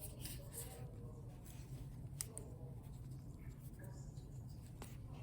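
Faint rustling and a few small clicks of hands untwisting wire twist ties and handling case fans, over a low steady hum.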